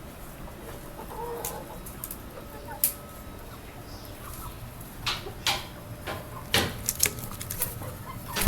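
Desi chickens clucking softly, with several short sharp clicks in the second half.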